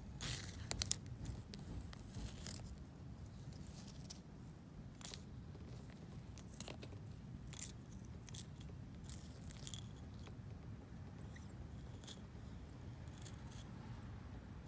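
Sulcata tortoise biting and scraping with its beak at a hard white piece of calcium, giving irregular crisp crunches and scrapes. The loudest cluster comes about a second in.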